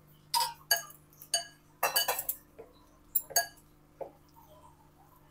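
Clinking of kitchenware against a mixing bowl, about seven sharp knocks that each ring briefly, as water is added little by little to flour to mix a dough.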